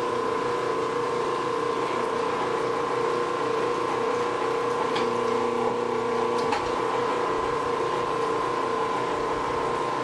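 Electric wire stripping machine (Bluedog BWS-60, 1.5 hp motor with gearbox) running steadily with an even hum and a high whine while a length of insulated copper wire is fed through its rollers and slit by the blade. Two faint clicks come about halfway through.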